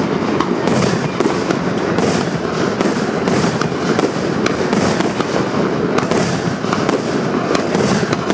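Aerial fireworks display: shells bursting in quick succession, sharp reports coming about twice a second, over a steady wash of noise.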